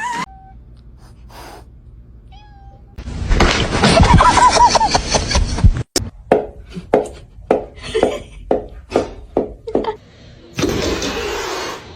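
Cat vocalising: a loud, noisy stretch with a wavering pitch, then a run of about a dozen short calls, roughly three a second.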